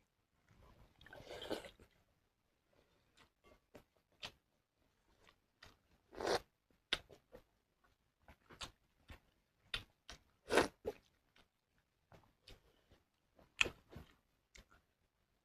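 A person eating a meal of pakhala (rice in water) with fried mushroom close to the microphone: soft chewing clicks and crunches throughout, three of them louder. There is a softer drawn-out noise about a second in.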